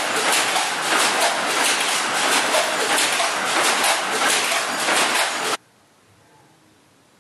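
Power looms in a woollen mill clattering with a fast, even beat, cutting off abruptly about five and a half seconds in to quiet room tone.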